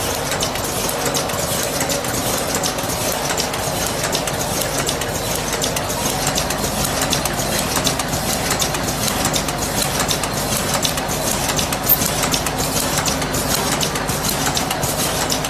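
Eraser wrapping machine running steadily: a continuous mechanical hum with a rapid, dense stream of small clicks and clacks from its moving parts.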